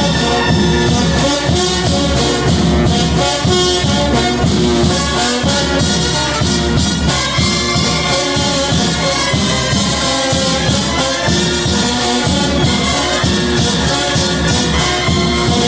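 A Latin American banda brass band playing, with brass horns including a bombardino (euphonium) over a steady, rhythmic low bass line and percussion.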